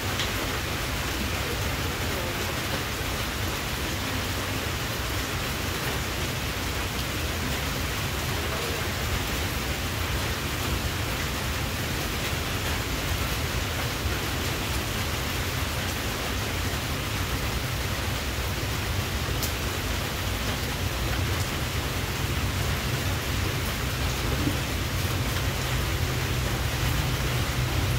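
Steady, even hissing noise with a low rumble underneath, unchanging throughout.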